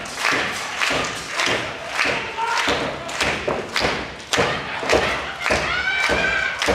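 Audience clapping together in a steady rhythm, about two claps a second, with a short shout near the end.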